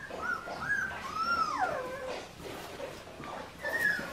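Australian Shepherd puppies whining and whimpering: short rising-and-falling whimpers, then one long whine sliding down in pitch about a second in, and another whine starting near the end.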